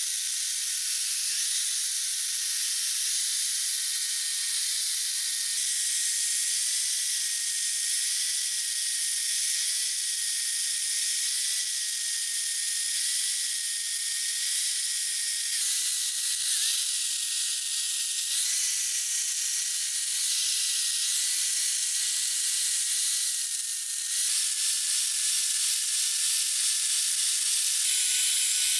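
Corded electric chainsaw running and cutting into a log: a steady high motor whine over the hiss of the chain through the wood. The whine drops a little in pitch near the end.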